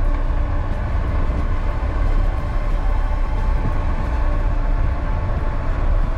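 Steady drone of a Land Rover's engine and drivetrain heard from inside the cab while driving, with a heavy low rumble and a faint steady whine above it.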